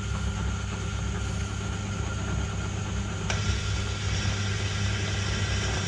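Myford lathe running at its lowest speed with a steady hum, while a drill held in the tailstock is fed by hand into the spinning steel workpiece. A short click a little past halfway.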